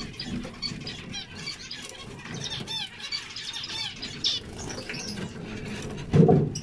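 Zebra finches calling and chirping, many short high notes overlapping, with a few quick repeated notes of song. A brief, louder low thump comes about six seconds in.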